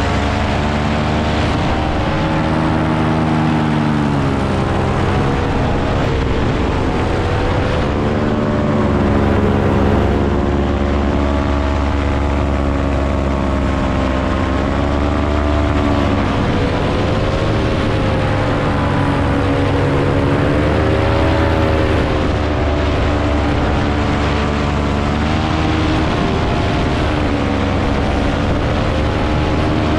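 Paramotor engine and propeller running steadily in flight, its pitch slowly rising and falling again and again as the throttle is worked.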